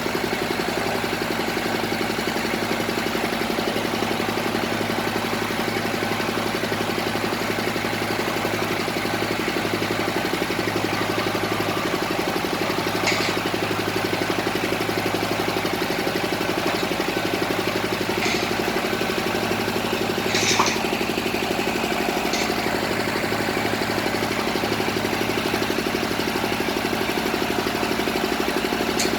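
Engine of a bored-pile drilling rig running steadily at idle, with a few short clicks over it.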